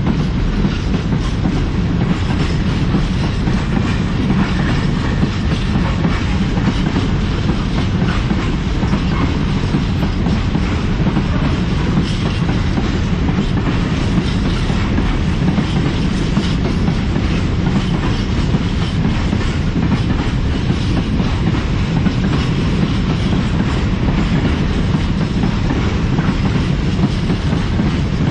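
A long freight train of four-axle Eaos open wagons rolling past close by: a steady, loud rumble and clatter of steel wheels on the rails and over rail joints.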